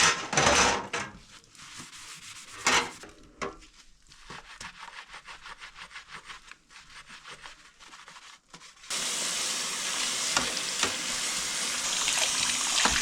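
Sponge scrubbing a soaked metal toaster-oven tray in fast rhythmic strokes, about four or five a second, with a few harder rubs early on. About nine seconds in, steady running water starts suddenly.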